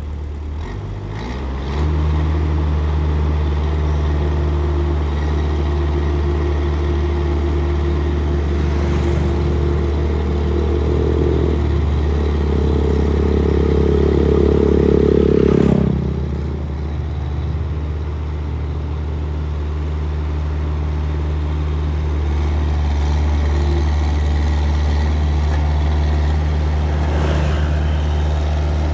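A vehicle engine running under load with a steady low drone, building louder and harder for several seconds past the middle, then easing off suddenly with a click and settling back to a steady run.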